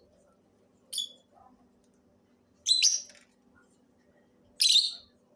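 Pet parrot giving three short, shrill calls, one about a second in, one near the middle and one near the end.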